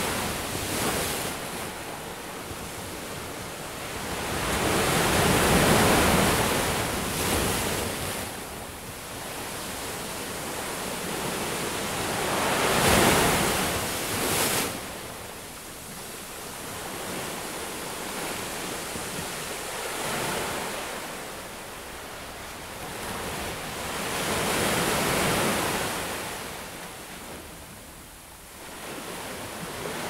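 Ocean waves breaking and washing up a beach, swelling and falling back roughly every six seconds, with the loudest surge about halfway through.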